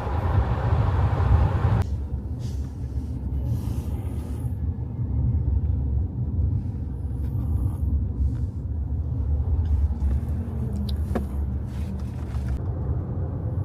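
A car driving on the road: a steady low rumble of engine and tyres.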